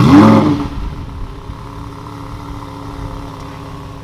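Supercar engine starting: it catches with a sharp, loud flare of revs that rises and falls back within about half a second, then settles into a steady idle.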